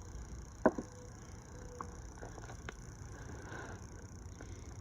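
Hands sifting through potting soil for potatoes, with one sharp knock a little over half a second in, then faint scattered clicks and rustles.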